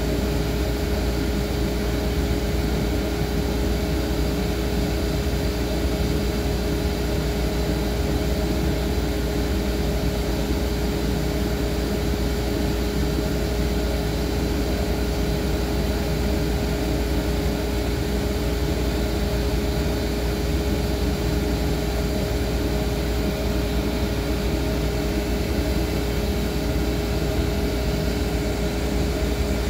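Countertop appliance running: a steady, unchanging motor hum with one clear mid-pitched tone over a low rumble.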